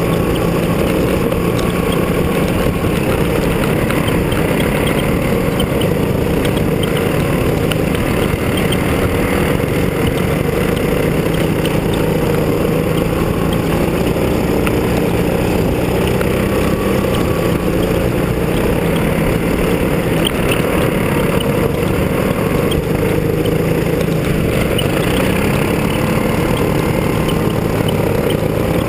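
Go-kart engine heard from the driver's seat, running steadily with its pitch wavering up and down as the throttle changes, and rising near the end. A steady rushing noise runs under it.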